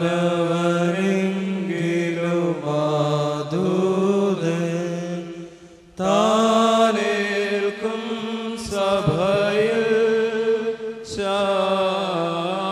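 Syriac-rite liturgical chant, sung melodically with long held notes over a steady low note. It breaks off abruptly about six seconds in and resumes at once. Later there are two brief high clinks.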